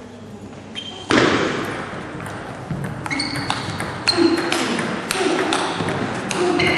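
Table tennis rally: a celluloid ball struck back and forth, a quick run of sharp clicks and short pings off the bats and table, with spectators' voices in a large hall.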